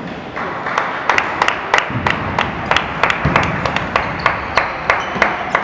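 Applause from a few people, starting just under half a second in, with sharp single claps standing out about three times a second.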